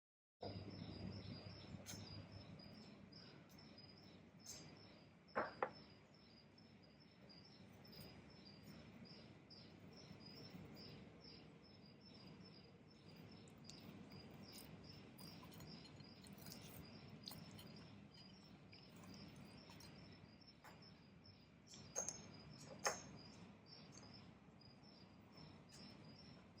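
A cricket chirping in a steady rhythm, about three high chirps a second, faint in a quiet room. A couple of sharp knocks about five seconds in and two more a little past twenty seconds are the loudest sounds.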